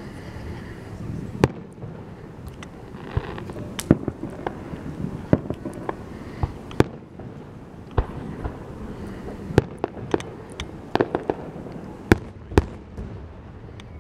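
Aerial firework shells bursting in a show: a long irregular string of sharp bangs, the loudest about four seconds in and again near twelve seconds.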